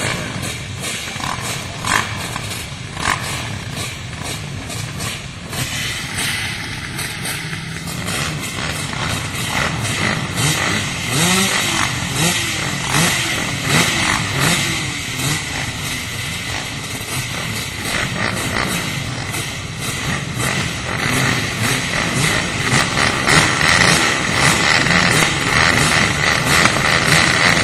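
Off-road engines revving and running together. Their pitch rises and falls sharply about ten seconds in, and the noise grows louder over the last several seconds.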